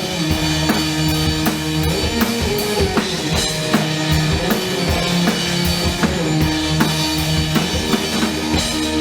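Live band playing loud with the drum kit prominent: a steady beat of kick, snare and cymbals over held bass notes.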